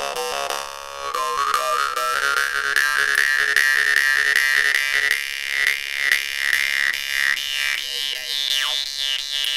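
Handmade jaw harp (vargan/khomus) of forged stainless steel with a bronze overlay on the frame, being played: a steady low drone under rapid rhythmic plucking, with a bright overtone melody shifting above it. Near the end the overtones sweep quickly up and down.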